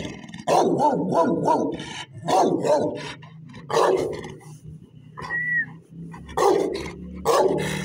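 Large chained dog barking in short deep barks: a quick run of about four barks half a second in, then barks in ones and twos every second or so.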